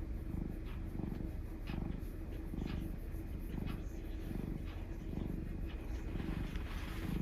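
Domestic cat purring steadily, close up, the purr swelling and fading about once a second.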